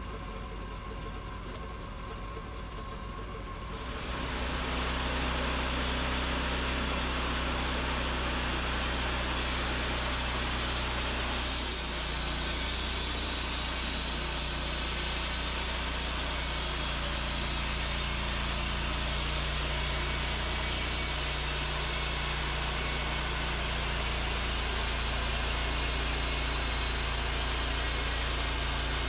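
Wood-Mizer LT40 portable sawmill running. Its engine runs steadily throughout, grows louder about four seconds in as the mill is worked, and a higher hiss joins at about eleven seconds.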